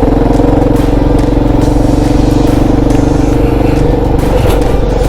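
Kawasaki KLR650's single-cylinder engine running at a steady pitch while the motorcycle is ridden, its note wavering briefly about four and a half seconds in.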